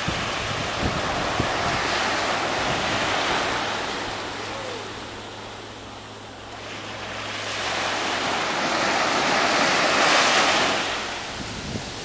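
Small sea waves washing up a sandy beach and drawing back, a steady hiss of surf that ebbs to a lull about halfway and swells again near the end. A little wind rumbles on the microphone.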